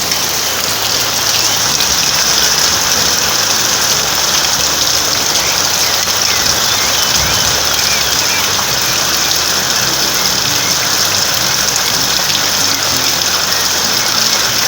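Steady rain falling, an even hiss throughout, with short bird chirps heard faintly over it now and then.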